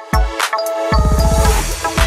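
Background electronic music with deep bass hits; from about halfway a steady bass pulse sets in under a hissing sweep that builds toward the end.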